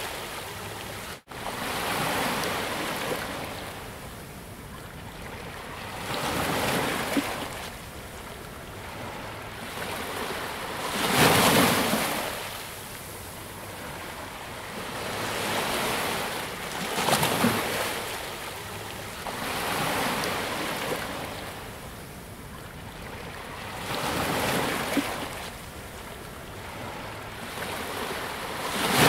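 Ocean surf: waves breaking and washing ashore, swelling about every five seconds over a steady hiss of water. The sound cuts out for an instant about a second in.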